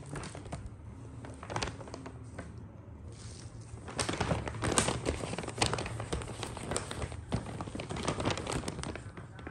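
Brown paper shopping bag crinkling and rustling as a cat climbs into it and shifts about inside, in irregular crackles that get busier and louder about four seconds in.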